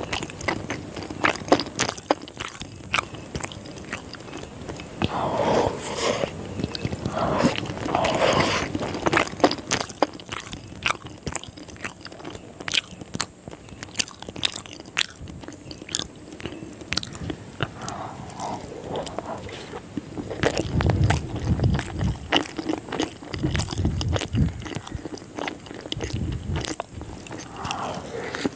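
Close-miked biting and chewing of a Korean fried chicken drumstick, with many sharp, crisp crunches. A few dull low thumps come in after about twenty seconds.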